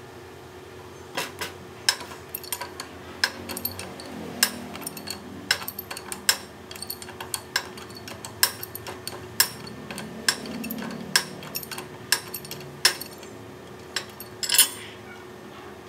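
Steel pipe wrench clicking and clinking against a round steel fitting as its jaws bite, slip and are re-seated in short turning strokes, at irregular intervals of about one to two a second, with the loudest clink near the end.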